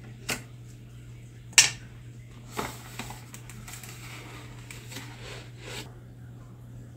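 Plastic toy packaging tube being opened by hand: a few sharp plastic clicks as the clear cap comes off, the loudest about a second and a half in, then light rustling as the figure is pushed out, over a steady low hum.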